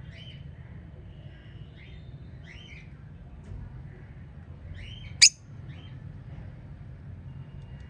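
Budgerigars chirping in short notes, one every second or so, with a single sharp, much louder chirp a little past five seconds in. A steady low hum runs underneath.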